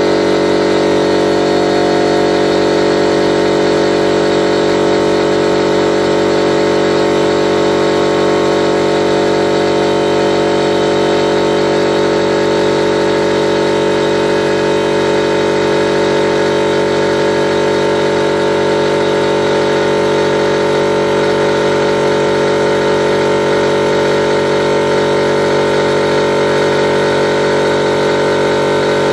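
50-litre air compressor running steadily, its pump filling the tank.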